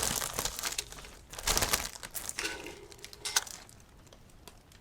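Packaging crinkling and rustling in bursts as an item is pulled out of a lucky bag, with a sharp click about three and a half seconds in.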